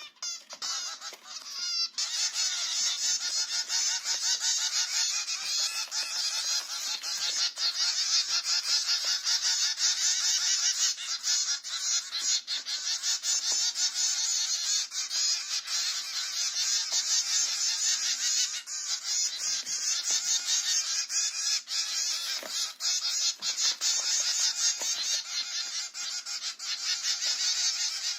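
Dense, continuous chorus of a large flock of birds chirping and calling, many voices overlapping; it grows louder about two seconds in.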